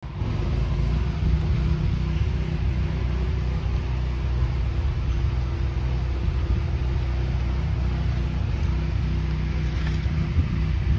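An engine running steadily at one constant speed, a low, even hum.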